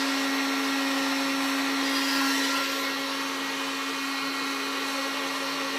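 Heat gun running steadily, its fan whirring and blowing hot air to soften plexiglass for bending, with a steady hum under the air noise; a little quieter about three seconds in.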